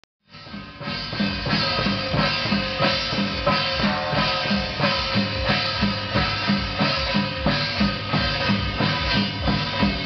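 Procession percussion: a hand-held barrel drum and clashing hand cymbals beating a steady marching rhythm of about two strokes a second, with the cymbals ringing over the drum. It fades in over the first second.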